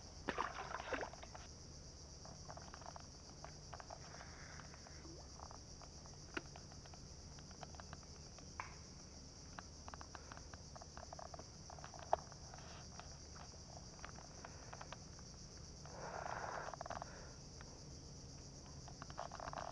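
Insects chirring in a steady, even high-pitched drone, with scattered faint clicks and taps and a brief rustling noise about sixteen seconds in.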